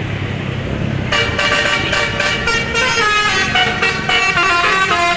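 A bus engine running, then about a second in a 'telolet' basuri multi-tone air horn starts playing, stepping through a tune of several notes.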